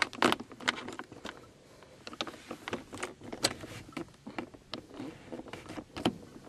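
Car keys on a ring jangling and clicking in short, irregular bursts as the key is worked in the ignition lock.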